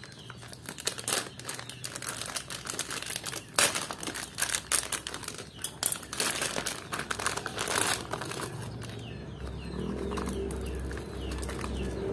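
Foil-laminate packaging crinkling and tearing as hands pull it open around a new carburetor, in irregular crackly bursts. A low steady hum sets in over the last couple of seconds.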